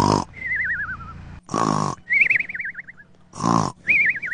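Exaggerated cartoon-style snoring. A loud rasping snore on each in-breath comes three times, about two seconds apart, and each is followed by a wavering whistle that slides down in pitch on the out-breath.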